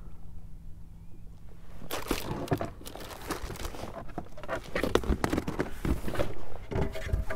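Rustling, crinkling and knocking handling noises: a dense run of small clicks and rubs that starts about two seconds in after a quieter stretch.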